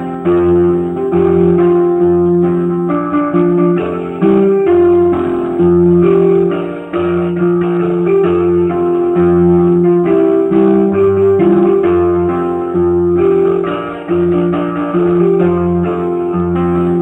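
Instrumental background music led by plucked guitar, with chords changing every second or so.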